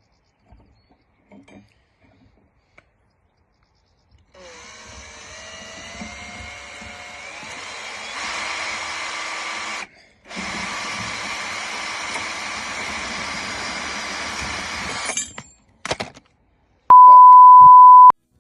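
An electric power tool's motor starts about four seconds in, rising in pitch as it spins up, and runs steadily. It cuts out for a moment and then runs again for about five seconds before stopping. Near the end comes a loud, steady beep tone lasting about a second, the loudest sound here.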